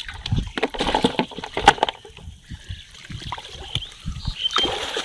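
Water splashing and sloshing in irregular bursts, loudest a little under two seconds in.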